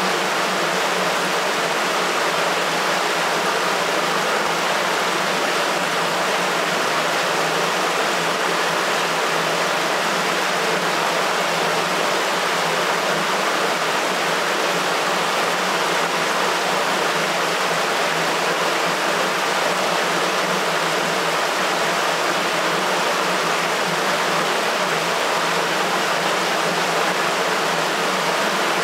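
Water rushing steadily through a sewer, an even rush with little low rumble.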